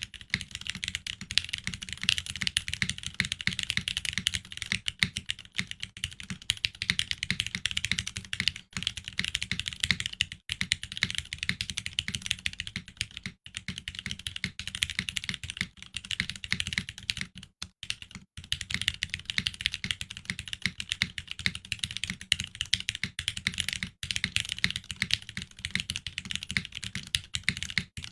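Continuous fast typing on a Geonworks Frog TKL mechanical keyboard with Cherry MX Hyperglide Black linear switches lubed with Krytox 205g0, mounted on an aluminum plate and topped with CRP R4 keycaps. The keystrokes run in a dense, steady stream, broken by a few short pauses.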